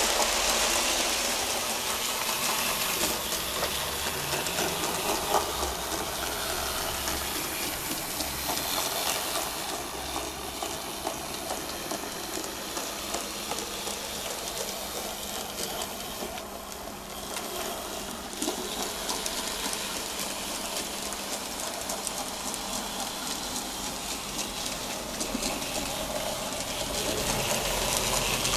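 Graham Farish N gauge Stanier 8F model locomotive running with a long train of coal wagons: its motor and wheels on the track make a steady rushing noise with fine clicking throughout.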